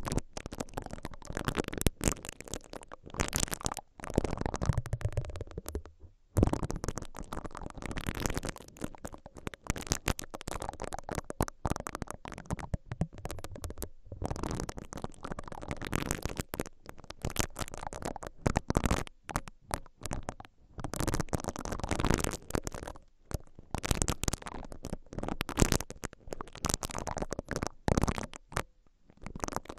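Silicone-bristled ear pick rubbing and scraping directly inside the capsule openings of a stereo X/Y microphone. It makes close, crackly brushing strokes, one after another, broken by brief pauses.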